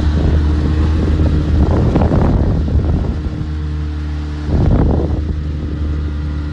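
Motorboat engine running at a steady hum while under way, with wind on the microphone. Two louder rushing whooshes come about two seconds in and again near five seconds.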